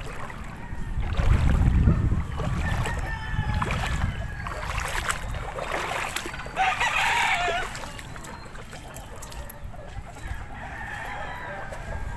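A rooster crowing, one call of about a second roughly six and a half seconds in, with a fainter call near the end. A loud low rumble on the microphone about a second in.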